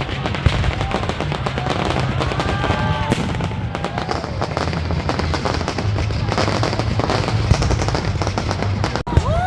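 Fireworks display with shells bursting and crackling in rapid succession, many sharp pops a second over a steady low rumble.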